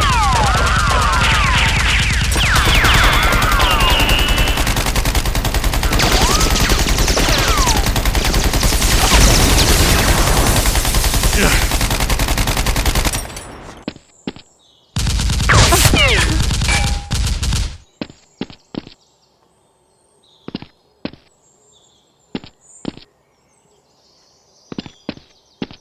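Rapid automatic gunfire, continuous for about thirteen seconds with high swooping tones over it, then a short burst and a run of separate single shots.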